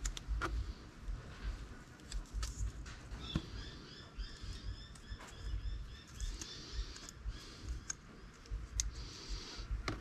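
Hands pulling and snapping fine copper winding wire off a small microwave motor's plastic bobbin: scattered light clicks and handling thumps. Through the middle, a bird chirps in a quick repeated series.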